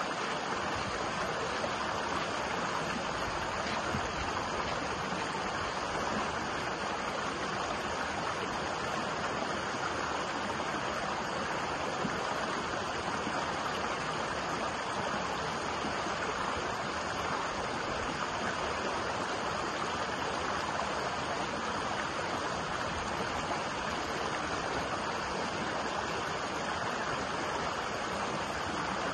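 A shallow, rocky stream running fast over and between boulders, breaking into white water: a steady, even rush of water.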